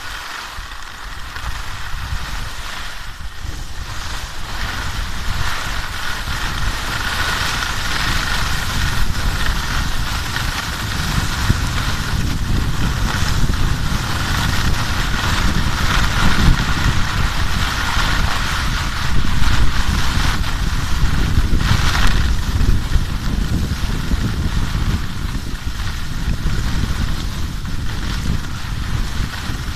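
Skis sliding over snow, with wind rumbling on the microphone; the noise builds over the first several seconds and then stays steady.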